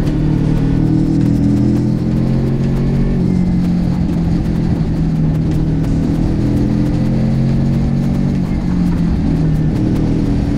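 Motorcycle engine running steadily while riding along, with wind noise on the microphone.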